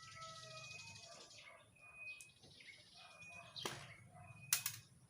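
Birds chirping in short whistled notes at several pitches, over a soft hiss in the first second or so, with two sharp clicks near the end.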